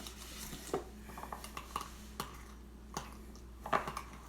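A spoon clicking and tapping against a bowl in scattered light taps as cornmeal is added to the cream cheese mixture.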